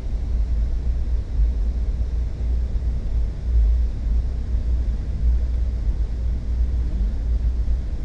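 Steady low rumble of a passenger train running along the track, heard from inside the railcar.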